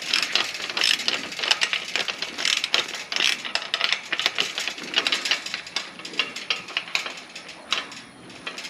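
Hand ratchet wrench clicking in rapid runs as it is worked back and forth, tightening a nut on a chain link gate fitting.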